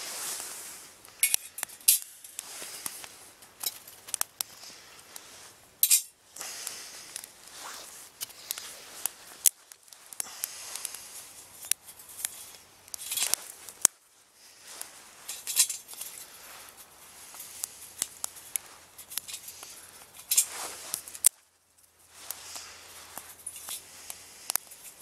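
Small twigs being snapped and poked into a little perforated-metal twig stove: an irregular string of sharp clicks and snaps with light metallic clinks and rustling between them.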